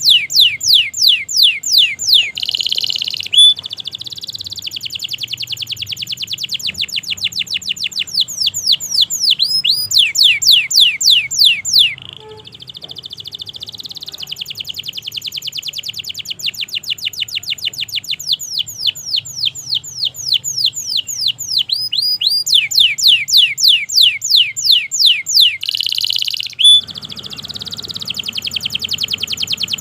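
Domestic canary singing a long, continuous song of rapid trills: runs of repeated sweeping notes that switch between slower and faster tempos, broken by a couple of short buzzy notes.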